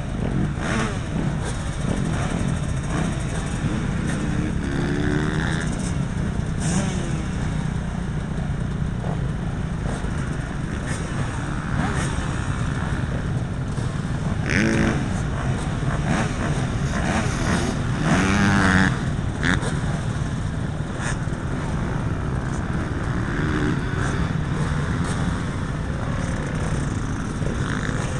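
Motocross bike engines running, with a few short revs that rise and fall, over a steady dense rumble on the helmet camera's microphone.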